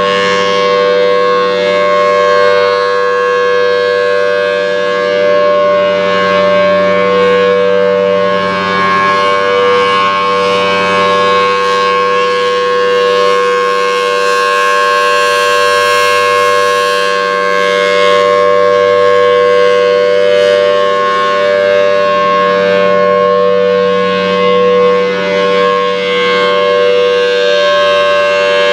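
Federal Signal Thunderbolt 1000T outdoor warning siren sounding its Alert signal: one loud, steady tone held at a fixed pitch, its level slowly swelling and fading as the rotating horn sweeps around.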